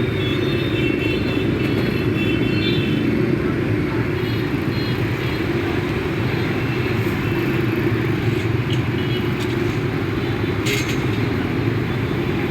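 Steady rumble of road traffic going by, with a short sharp click near the end.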